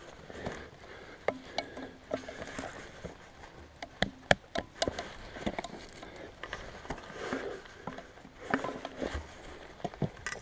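A climber scrambling up steep grass and limestone: dry grass tufts rustling as bare hands grab and pull on them, with irregular sharp clicks and scrapes of boots and gear against the rock.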